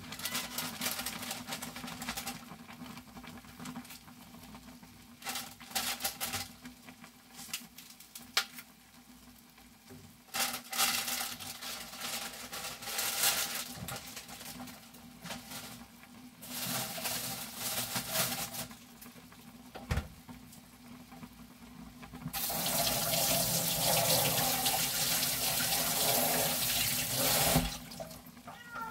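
Ramen broth boiling in a glass saucepan on a radiant electric cooktop: uneven bursts of bubbling, turning into a loud, steady boil about 22 seconds in that cuts off shortly before the end.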